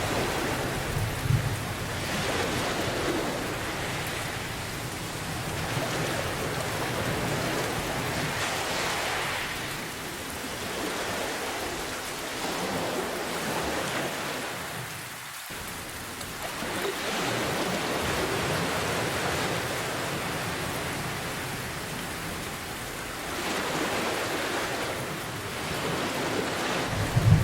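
Steady heavy rain hissing, with a low thunder rumble that fades in the first second or so and begins again at the very end. The noise swells and ebbs every several seconds, like waves washing in.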